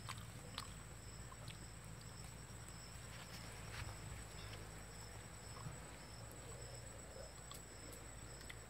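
Quiet outdoor ambience: a steady high-pitched whine over a low hum, with a few faint soft clicks.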